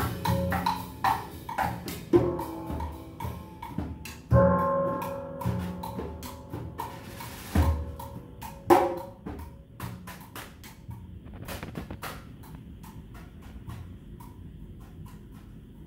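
Drum kit and hand percussion playing loose, irregular strokes with ringing drum tones, thinning out after about ten seconds into faint scattered taps as the music dies away.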